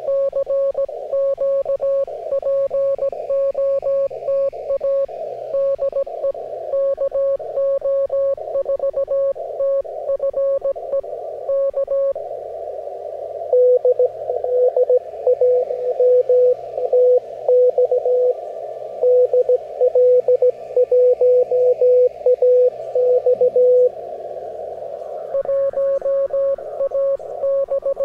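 Morse code (CW) signals on an amateur radio receiver: keyed dots and dashes of a single tone over a steady band of receiver hiss. One station sends for about twelve seconds. Then a second, slightly lower-pitched and louder station answers for about ten seconds, and the first pitch comes back near the end.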